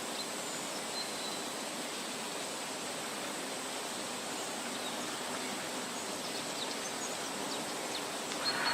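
Steady outdoor background hiss with a faint, high, steady whine, a few faint high ticks in the middle and a brief swell of noise near the end.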